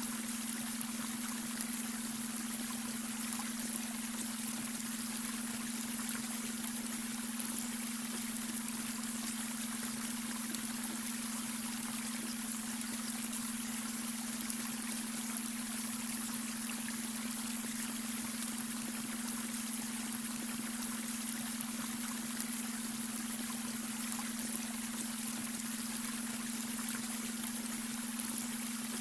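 Babbling brook, water running and splashing steadily, with a steady low hum of a beta-wave brainwave tone laid under it.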